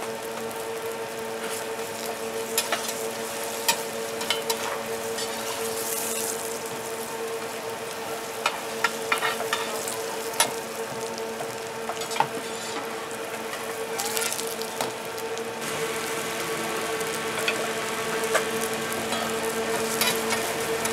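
Spring-onion batter pancake sizzling in a round cast-iron pan, with scattered crackles and pops throughout, over a steady hum.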